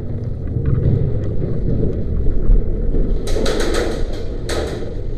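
Airsoft gun firing a rapid burst of sharp cracks about three seconds in, and another short burst a second later, over low rumbling movement noise on the microphone.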